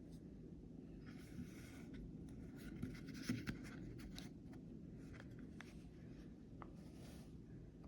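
Faint handling noise from a folding knife and its packaging being handled: three short scraping rustles and a scattering of small clicks over a steady low hum.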